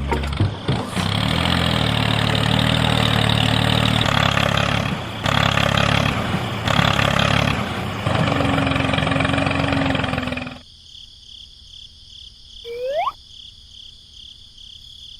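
Small motor of a DIY mini tractor running with a rattly mechanical drive, cutting off suddenly about ten and a half seconds in. After that only a faint steady high tone and one short rising chirp remain.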